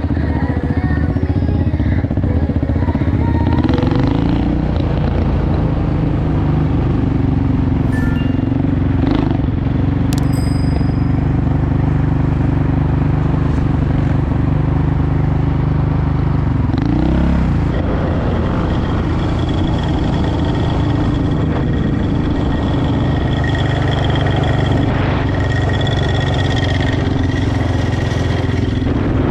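Honda TRX450R ATV's single-cylinder four-stroke engine running steadily at a constant speed, with a brief dip and rise in pitch about seventeen seconds in.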